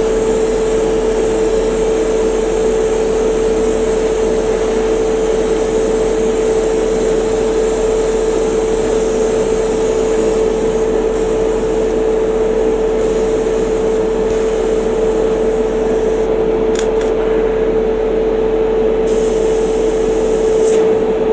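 Airbrush compressor running with a steady hum under the hiss of an airbrush spraying primer. The spray hiss stops for a few seconds near the end, with a few light clicks, then starts again.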